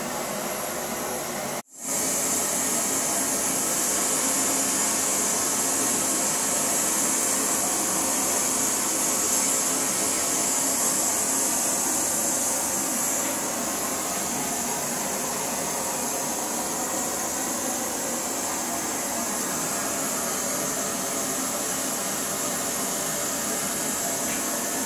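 Steady hiss, cut off for a moment about two seconds in and then resuming slightly louder.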